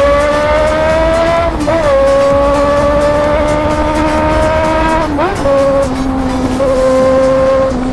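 Honda Hornet inline-four on a straight-through 4-into-1 exhaust accelerating hard, its pitch climbing steadily. It shifts up about one and a half seconds in and again about five seconds in, then holds a nearly steady pitch.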